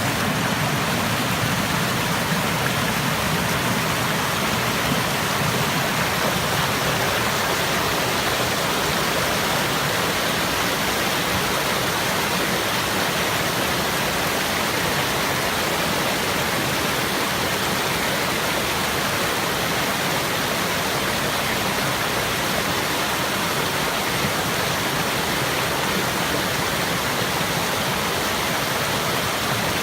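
Stream water running in a steady, even rush.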